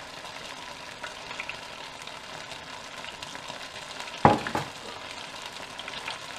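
Tempura-battered banana fritters frying in an electric deep fat fryer: a steady sizzling hiss of the hot oil with small crackles. A single sharp knock sounds about four seconds in.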